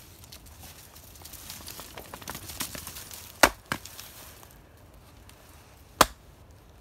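Axe striking firewood: two sharp chops about two and a half seconds apart, the first followed quickly by a lighter knock.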